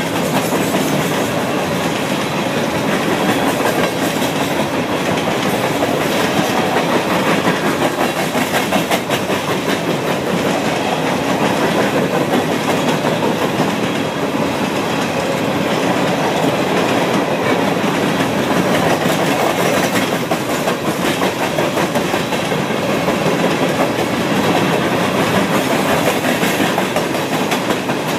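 Coal train's gondola cars rolling past steadily, steel wheels clacking over the rail joints under a continuous rumble.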